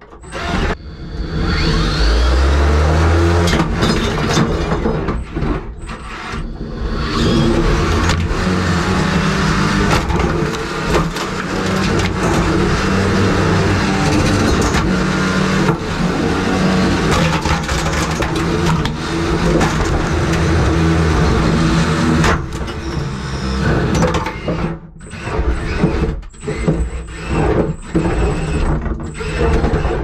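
A 3 lb combat robot's weapon motor whining while it drives into and batters broken coffee-maker parts, with repeated knocks and clattering debris, thickest near the end.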